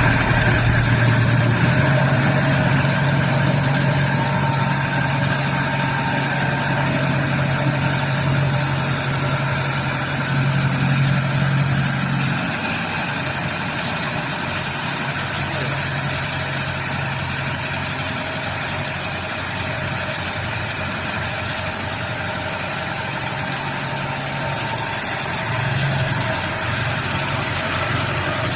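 Heavy vehicle engine idling steadily, with a slight drop in level about twelve seconds in and a brief rise near the end.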